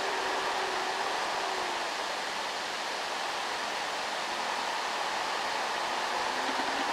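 Diesel engine of a fully loaded Isuzu light truck working hard up an incline, heard as a steady rushing drone.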